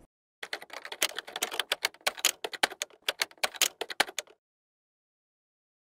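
Typewriter sound effect: rapid, irregular key clacks for about four seconds, starting about half a second in and stopping abruptly.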